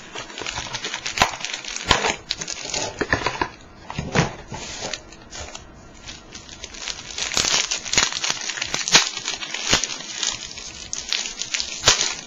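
A trading-card box and card pack wrappers being torn open and handled, with irregular crinkling, tearing and crackling rustles.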